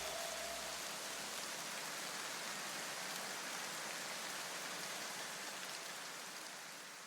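A steady, rain-like hiss that slowly fades away. The last ringing tones of the background music die out in the first second.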